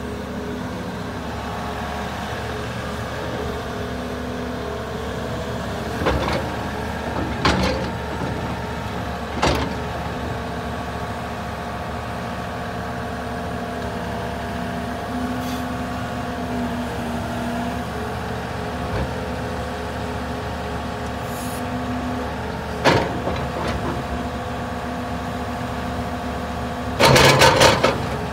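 Volvo EC380EL hydraulic excavator's six-cylinder diesel engine running steadily, with a whine from the hydraulics that shifts slightly in pitch as the boom and arm move. A few short clanks come about six, seven and a half, nine and a half and twenty-three seconds in, and a loud clattering burst comes near the end.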